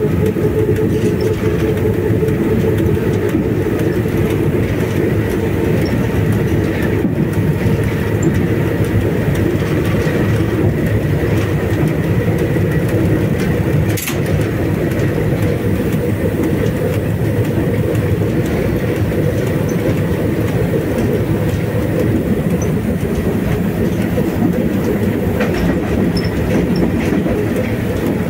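Cab noise of a VL10 electric locomotive running at speed: a steady rumble of the wheels on the rails with a hum underneath. There is one sharp click about halfway through.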